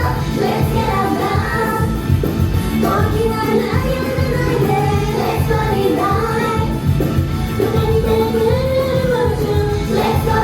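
A Japanese idol group of female singers singing together live over a loud pop backing track with a steady beat.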